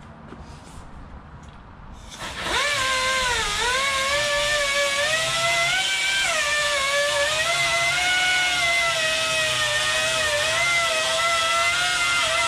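Small air-powered 90-degree grinder with a 3-inch 36-grit disc starting up about two seconds in, then running with a high whine and hissing air. The pitch dips and wavers as the disc bites into molded seat foam, rounding off its hard edges.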